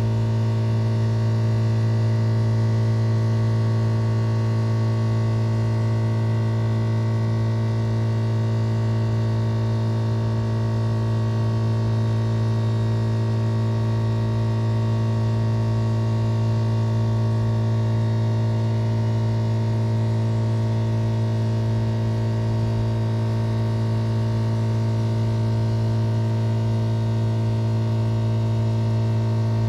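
High-voltage step-down power transformer at a substation humming steadily under voltage: a deep, even hum with a stack of higher overtones above it, never changing.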